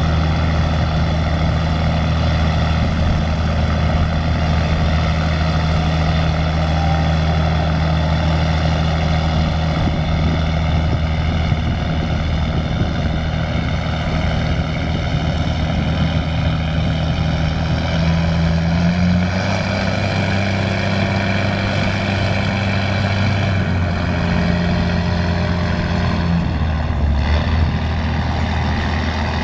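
A small tug's engine runs steadily as it pushes a loaded barge, a deep constant drone whose pitch steps up about two-thirds of the way through and shifts again near the end as the throttle changes.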